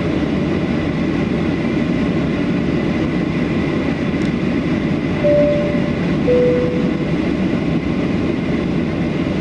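Steady rumble of an airliner cabin in flight, with a two-note falling chime about five and six seconds in.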